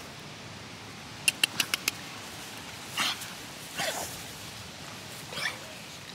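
American bully puppies crying while play-fighting: three short whining yelps, each falling in pitch, about a second apart, after a quick run of five sharp clicks.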